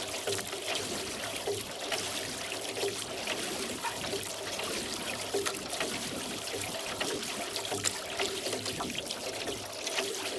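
Water trickling and splashing as a rowboat is rowed across a lake, the oars dipping and dripping.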